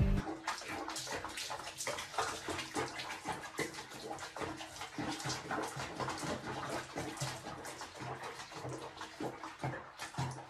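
Water sloshing and splashing in a small bathroom basin around a cat sitting in it, made of many small, close-spaced splashes and drips.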